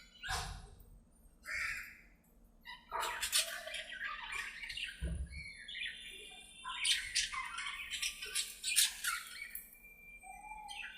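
Several budgerigars chattering, with quick irregular chirps and squawks overlapping one another.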